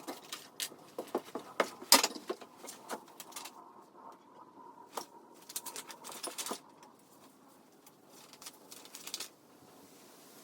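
Rapid, irregular clicks, clatters and knocks of metal and plastic parts being handled and fastened while a dust extractor is assembled, played back sped up. The loudest knock comes about two seconds in, and the clicks thin out near the end.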